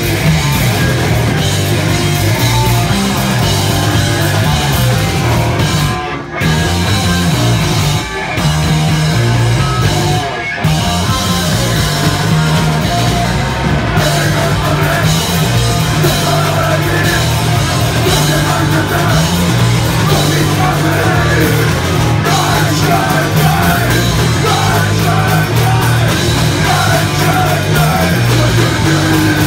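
Punk rock band playing live: distorted electric guitar, bass and drums, with shouted vocals. The music breaks off for an instant three times, at about six, eight and ten and a half seconds in.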